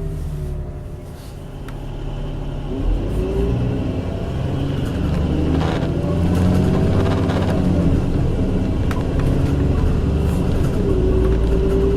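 VDL DB300 single-decker bus heard from inside, its engine and drivetrain pulling as it accelerates, with a whine that rises in pitch as it speeds up, over a low rumble and odd clicks and rattles.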